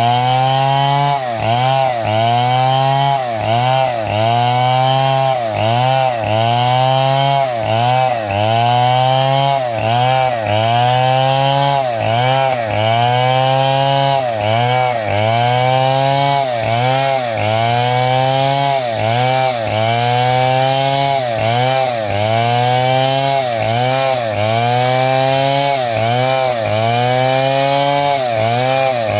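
Stihl two-stroke chainsaw cutting through small timber over and over. Its engine note dips sharply and climbs back about once a second as the chain bites and clears each cut.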